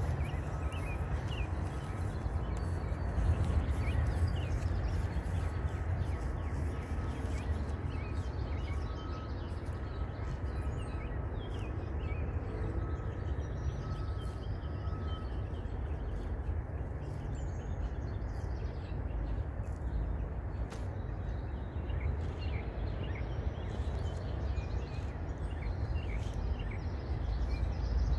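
Outdoor pasture ambience: a steady low rumble with scattered bird chirps over it, and a faint high, on-and-off tone through roughly the first half.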